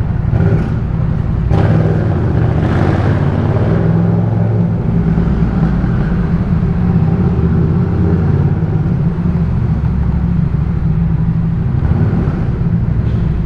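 Yamaha MT-07's 689 cc parallel-twin engine running through a Jeskap K4 full aftermarket exhaust while riding, holding a fairly steady engine speed with small changes in pitch.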